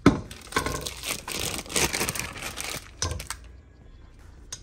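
Plastic piping bag crinkling and rustling as it is handled with churro dough inside. A sharp knock comes at the very start, and the rustling dies down after about three seconds.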